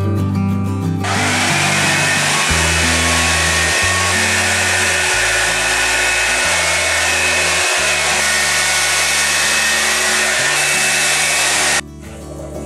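Hot-air brush blowing on wet hair: a steady rushing hiss with a faint motor whine, switched on about a second in and cut off suddenly near the end.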